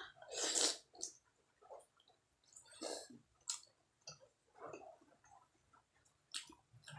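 Close-up wet chewing and mouth sounds of someone eating steamed chicken momo, irregular squishy smacks and clicks. The loudest is a burst as a momo is bitten into, about half a second in.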